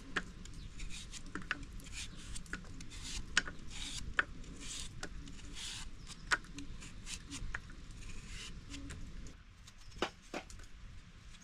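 Repeated short scraping or rasping strokes, mixed with small clicks and knocks.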